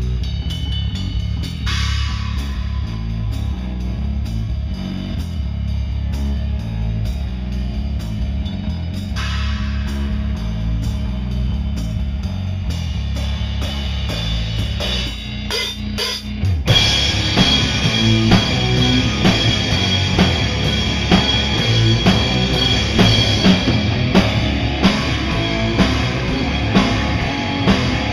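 Rock band playing an instrumental intro live: bass guitar and drums with cymbal hits at first. About sixteen seconds in, the full band comes in louder with guitar and driving drums.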